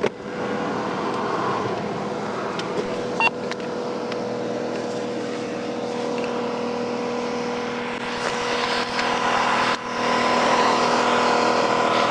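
Steady highway traffic noise with vehicles going by, louder from about eight seconds in and again from about ten seconds in, over a constant low hum.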